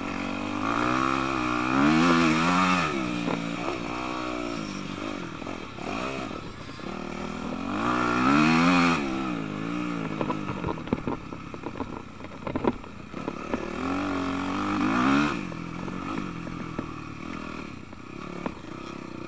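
Yamaha YZ250F four-stroke single-cylinder dirt bike engine revving up and down in three throttle surges, with a run of clattering knocks between the second and third.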